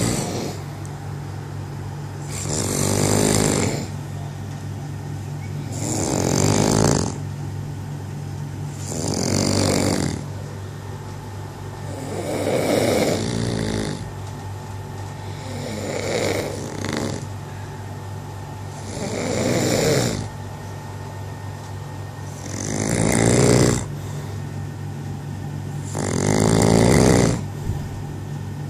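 A person snoring loudly, one long snore about every three and a half seconds, each swelling up and then cutting off.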